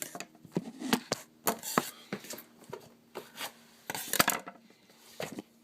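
Packaging being handled and opened by hand: scattered clicks, knocks and short rustles, the loudest a quick cluster about four seconds in.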